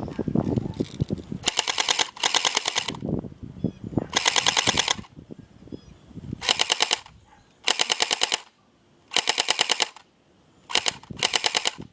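Electric airsoft M4A1 rifle firing on full auto: six short bursts of rapid clicking shots, the motor and gearbox cycling quickly and stopping sharply between bursts.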